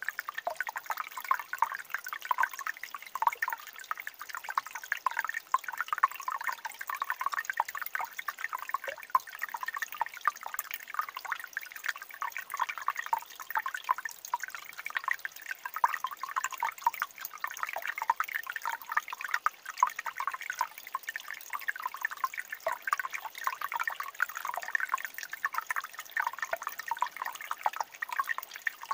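Shallow mountain stream trickling and gurgling between granite rocks and pools: a continuous, even run of many small drips and splashes.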